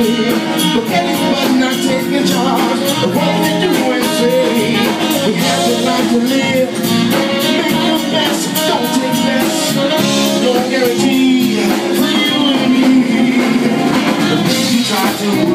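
Live blues band playing: a saxophone solo over drum kit and electric guitar.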